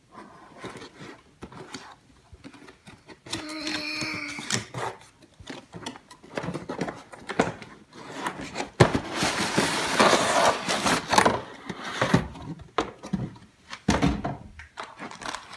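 A cardboard toy box being opened and unpacked by hand: scraping and rustling of cardboard and plastic packaging, with scattered knocks and a long stretch of louder rustling in the middle.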